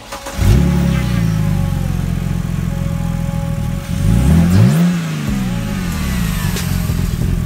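2008 BMW 328i's 3.0-litre straight-six starting with a quick flare in revs and settling to idle, then revved once about four seconds in, rising and falling back to idle, breathing through a newly fitted open cone air filter.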